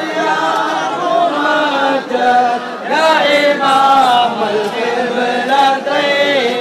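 A large crowd of men chanting together in a melodic devotional chant, the pitch rising and falling on long held notes.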